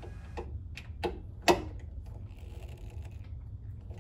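Phillips screwdriver turning a screw out of a pinball machine's metal back box: a few light metal clicks and ticks, with one louder click about a second and a half in and fainter ticks after it.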